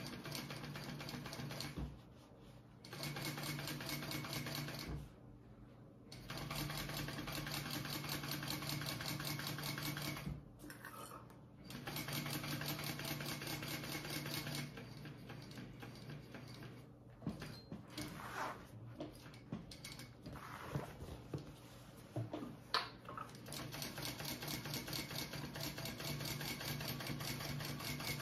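Kingmax GC0302 industrial sewing machine stitching through vinyl, a fast even ticking over a steady motor hum. It stops briefly three times in the first dozen seconds, runs fainter with a few sharp clicks for several seconds in the middle, then stitches steadily again to the end.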